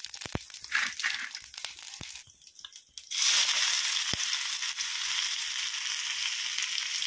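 Cumin seeds crackling in hot oil in a kadhai, with scattered clicks and brief spits. About three seconds in, chopped onion goes into the oil and a loud, steady sizzle starts and keeps on.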